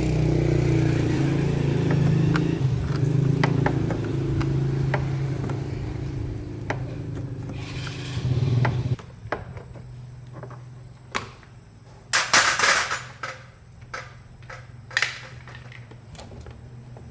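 A motor running steadily with a low hum, which drops away sharply about nine seconds in to a fainter hum; a few sharp knocks and a short clatter follow.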